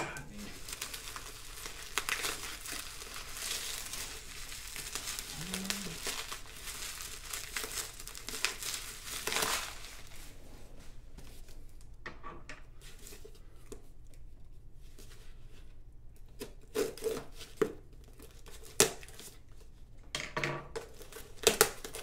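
Plastic bubble wrap crinkling as it is pulled off a small cardboard box, then the box being handled and its flaps torn open, with several sharp snaps near the end.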